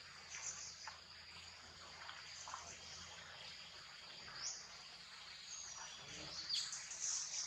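Forest ambience: a steady high insect drone with a few short bird chirps, the chirps coming thicker and louder near the end.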